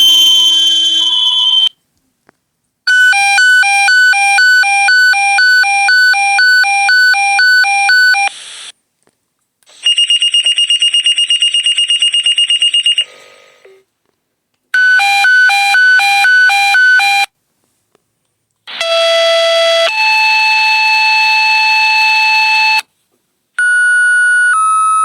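A run of different electronic pager alert tones from a smartphone's emergency-callout app, each playing for a few seconds with a short gap between them. In turn there is a pulsed beep about twice a second, a rapid buzzing tone, a faster pulsed beep, a steady tone that steps up in pitch, and a steady tone that steps down in pitch near the end.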